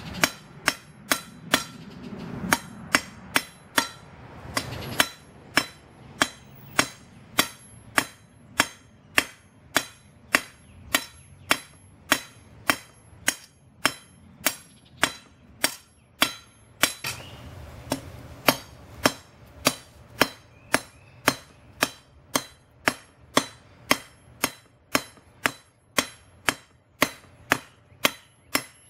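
Hand hammer striking a hot steel bar on an anvil at a steady pace of about two blows a second, each blow ringing; the blacksmith is forging a tapered point for a punch. The blows stop briefly a little past halfway, then resume.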